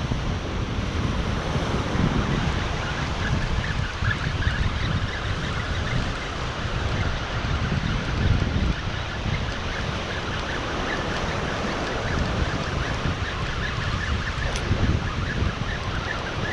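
Ocean surf breaking and washing up the beach, with wind buffeting the microphone in uneven low gusts.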